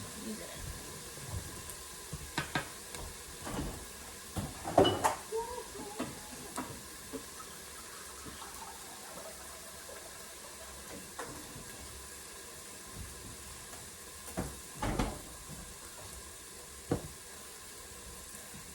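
Scattered knocks and clatter of kitchen things being handled, the loudest about five seconds in, with further knocks near the middle-to-end, over a low steady background.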